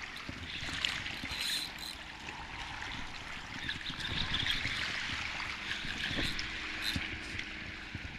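Small waves lapping and trickling at the water's edge, an even rushing wash with a low rumble of wind on the microphone and a few faint knocks.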